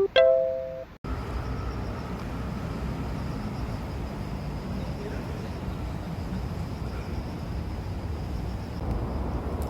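A few short ringing notes that cut off about a second in, then steady outdoor background noise: a low rumble with a faint, continuous high-pitched trill above it.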